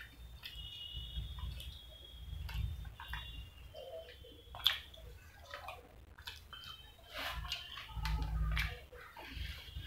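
Close-up wet chewing and lip-smacking while eating fried chicken drumsticks, with many short, irregular mouth clicks and smacks.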